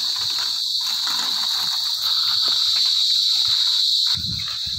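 A steady, unbroken high-pitched chorus of crickets. A low rumble comes in near the end.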